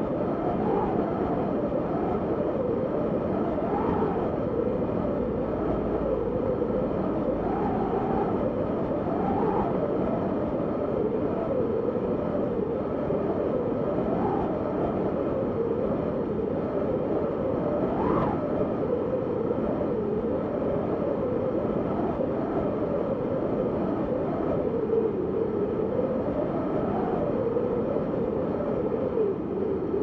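Wind howling: a steady low rush with a whistling tone that swells and falls in pitch every few seconds as it gusts. The sharpest rise comes about eighteen seconds in.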